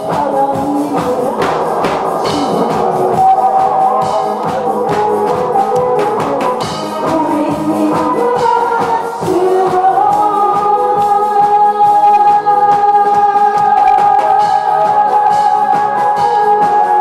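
A woman singing a Korean song into a microphone over a recorded backing track with a steady drum beat, holding one long note through the second half.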